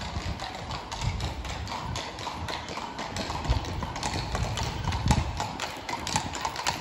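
Hooves of a pair of horses pulling a carriage clip-clopping at a walk on stone paving, growing louder over the second half as the carriage draws near.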